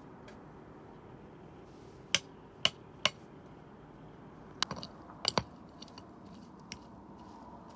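Sharp knocks of hard objects: three about half a second apart, then a quick cluster of several more about two seconds later and a few faint ticks, over a low steady background.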